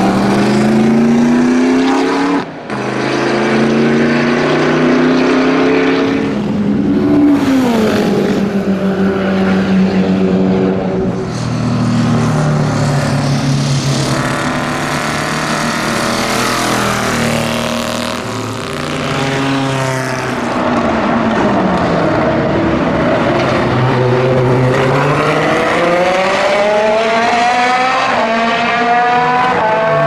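Vintage racing car engines running hard on a circuit, one car after another. The engine note climbs and drops repeatedly through gear changes and pass-bys, with a long steady climb in pitch near the end as a car accelerates.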